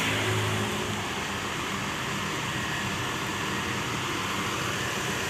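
Parked diesel coach idling: a steady low engine hum under an even hiss.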